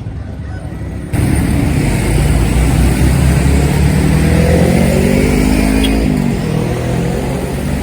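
A large road vehicle's engine accelerating past, growing suddenly louder just over a second in. Its pitch rises steadily for a few seconds, then drops about six seconds in.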